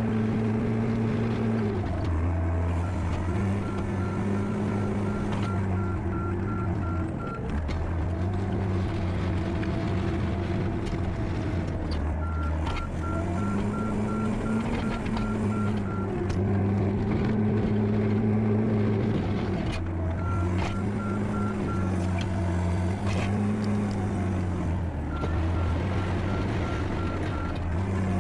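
John Deere skid steer's diesel engine running under varying load, its pitch rising and falling as the machine pushes snow and shuttles back and forth. A backup alarm beeps steadily, about two beeps a second, in four stretches while it reverses.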